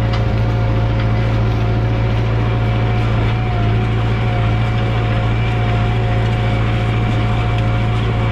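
Massey Ferguson 6455 tractor's diesel engine running steadily under load while pulling a disc harrow through hard, untilled ground.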